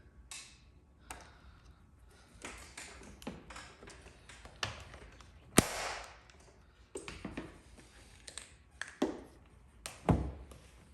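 Paintless dent repair hand tools tapping and clicking at irregular intervals, with a sharp loud crack about five and a half seconds in and a heavier knock near the end.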